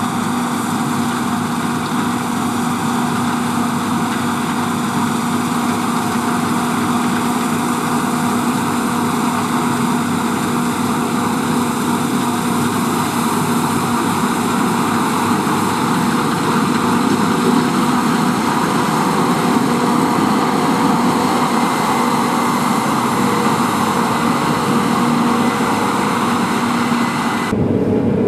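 Case IH Axial-Flow combine harvester running steadily while cutting oilseed rape: a loud engine and threshing hum with a strong low drone. Near the end it changes abruptly to a duller sound heard from inside the cab.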